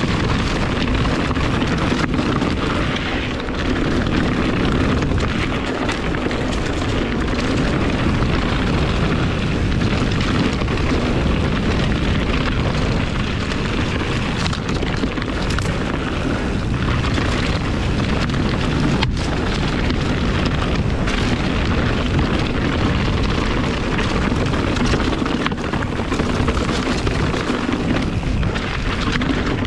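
Continuous rumble of a Kona Process 153 full-suspension mountain bike's tyres rolling fast over leaf-covered dirt and rocks on a downhill singletrack run, mixed with wind buffeting the microphone.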